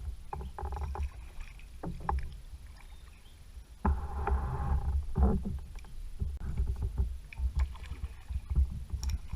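Kayak paddling: the paddle blades dip and splash in the water, with scattered drips and knocks against the kayak, over a steady low rumble.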